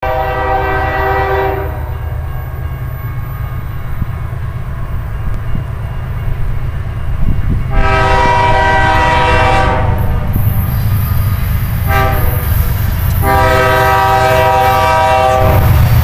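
Air horn of an approaching BNSF ES44AC diesel locomotive sounding for a grade crossing: the end of one blast, a long blast about eight seconds in, a short one about twelve seconds in and a final long one, the standard crossing signal. Under it runs the low rumble of the oncoming locomotives, growing louder near the end.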